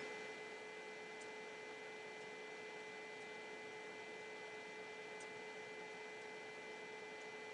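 Quiet room tone: a steady electrical hum and hiss with a few faint, steady whining tones, as from the recording setup's microphone. Two very faint ticks, about one and five seconds in.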